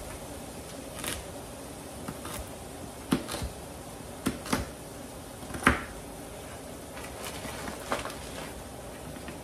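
Kitchen knife chopping carrots on a plastic cutting board: irregular knocks, about eight of them, the loudest a little past the middle, over a steady background noise.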